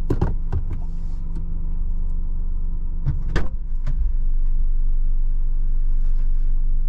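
Car engine idling, heard from inside the cabin, with a few clicks and knocks in the first second and a loud thud about three and a half seconds in as a car door is shut.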